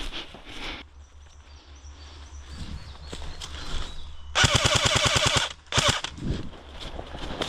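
Airsoft rifle firing a full-auto burst of about a second, a fast even rattle of shots, followed by a second short burst.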